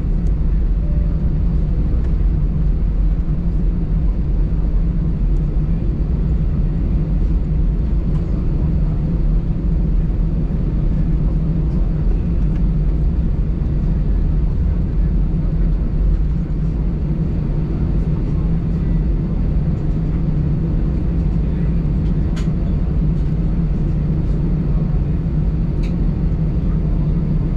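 Steady engine hum and low rumble of an Airbus A319 taxiing, heard inside the passenger cabin.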